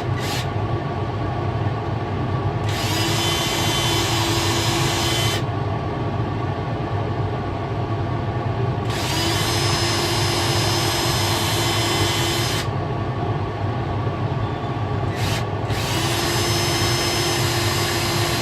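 A cordless drill fitted with a small center drill bit runs in three bursts of a few seconds each, cutting pilot holes into the heads of aircraft rivets. A steady low hum continues underneath.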